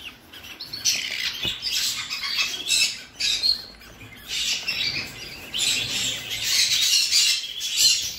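Budgerigar nestlings calling: repeated harsh, raspy squawking chirps in quick bursts.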